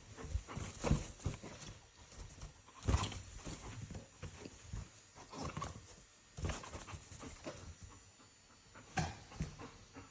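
Golden retriever 'talking' back in short, irregular vocal noises with pauses between them. The loudest come about three seconds in and again near the end.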